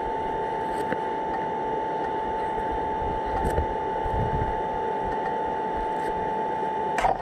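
Wind rumbling against the microphone of a motorcycle-mounted camera, with a steady high whine that cuts off near the end.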